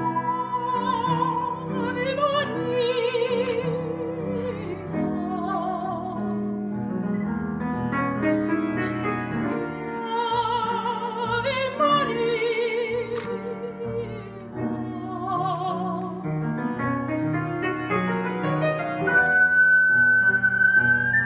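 A woman singing with strong vibrato, accompanied by an ocarina's steady, pure tone. The ocarina falls silent for a stretch in the middle, then comes back near the end on a high held note.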